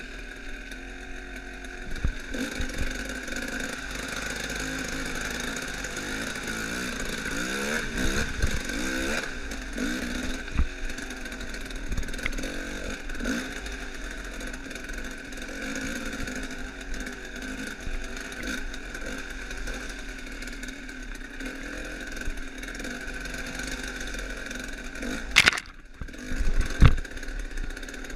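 Dirt bike engine running on a rough trail ride, revving up and down, with scattered knocks and clatter from the bike and two sharp loud knocks near the end.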